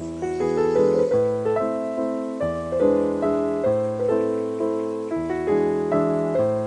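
Background piano music: a gentle melody of plucked-and-fading notes over a low bass line, coming in at the start.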